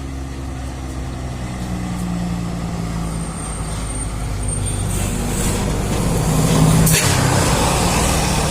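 A large bus's diesel engine running close by, growing gradually louder, with a hiss of air from the air brakes about seven seconds in.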